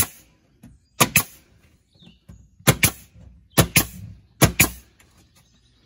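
Pneumatic nail gun fired about five times, roughly a second apart, each shot a sharp double crack as it drives a nail into the wooden wall boards.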